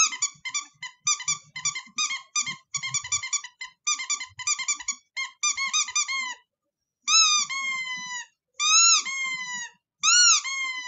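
High-pitched animal calls, from a recording: a fast run of short chirps for about six seconds, then three long calls that each fall in pitch.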